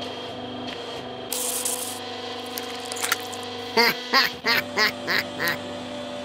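Cartoon sound effects over a steady background music drone: a short whoosh a little over a second in, then five short squeaky cries with swooping pitch in quick succession in the second half.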